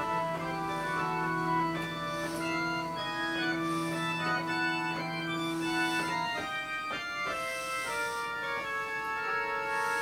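Two-manual digital organ playing an improvisation: sustained chords over a held low note, with melody notes moving above. The low note drops out about six seconds in, and the chords change.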